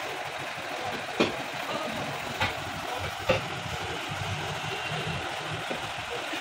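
An engine running steadily, with three sharp knocks standing out over it about a second apart in the first half.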